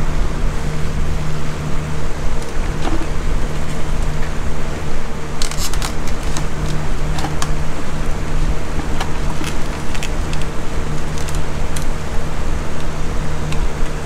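Light clicks and plastic snaps of a screwdriver prying at the tabs that hold the fuel pump onto a C5 Corvette's fuel pump module, coming thick from about five seconds in. A steady mechanical hum runs underneath.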